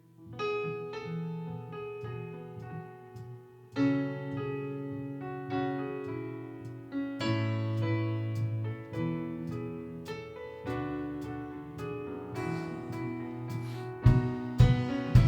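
Electric piano playing slow, sustained chords that change every second or so. Near the end, louder sharp hits and a fuller low end come in as the rest of the band joins.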